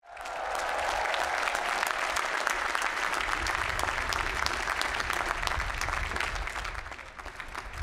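Large crowd applauding, a dense patter of many hands clapping that thins out and dies down near the end.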